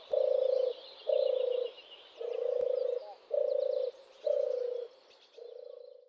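A frog croaking: six buzzy, pulsed croaks of about half a second each, roughly one a second, with faint bird chirps behind.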